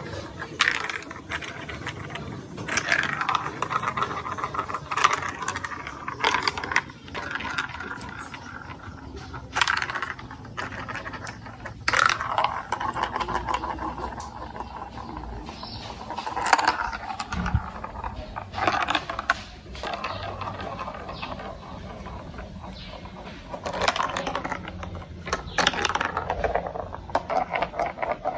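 Glass marbles rolling and clattering through a plastic building-block marble run: a steady rolling rattle broken by many irregular clicks and clacks as the marbles drop and knock against the track.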